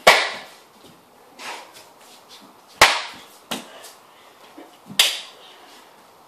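Sharp slaps on bare skin during a play-fight: three loud smacks about two and a half seconds apart, with a couple of fainter ones between, each ringing briefly in a hard-floored room.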